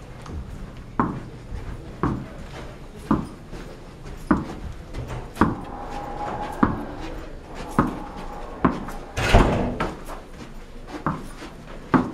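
A tennis ball being played with by hand: a sharp knock about once a second, with one louder, longer knock about nine seconds in.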